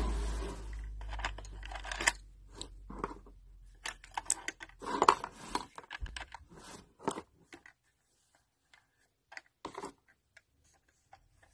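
Small hard-plastic toy kitchen pieces being handled, lifted and set down: a run of light plastic taps and clicks, busy at first and thinning out toward the end, with a low rumble in the first two seconds.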